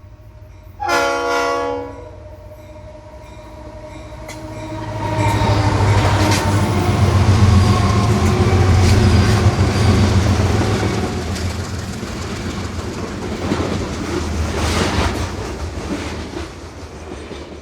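A train sounds a short horn blast about a second in, then rumbles past. The rumble builds to its loudest in the middle and eases off near the end, with the clickety-clack of wheels over the rail joints throughout.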